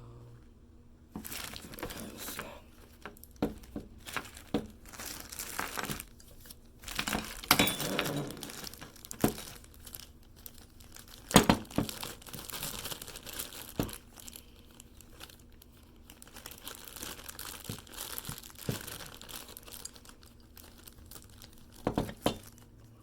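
A plastic bag crinkling and rustling as hands and picks work a Ford ignition lock cylinder inside it. It starts about a second in and comes in irregular bursts with sharp little clicks, the loudest about halfway through.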